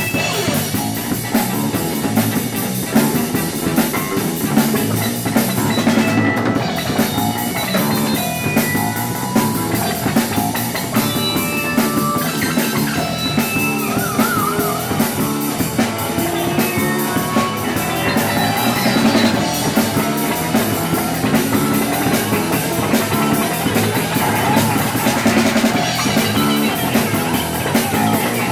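Instrumental rock jam: a drum kit under electric guitar played with an EBow, which gives long held notes, one of them wavering in pitch about halfway through.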